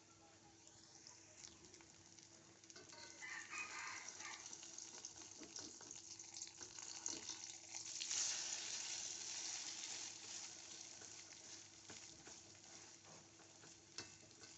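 Martabak mie mixture frying in hot oil: a sizzle that swells about eight seconds in, then dies down, with a click near the end.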